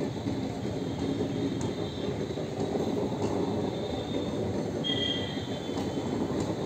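Indian Railways express passenger coaches rolling past on the track, a steady rumble of wheels on rail with occasional faint clicks. A thin high tone sounds for about a second near five seconds in.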